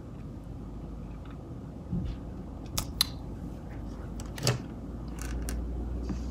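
A DSLR camera being handled: a few short, sharp clicks and knocks, the loudest about three and four and a half seconds in, with a few lighter ones after five seconds.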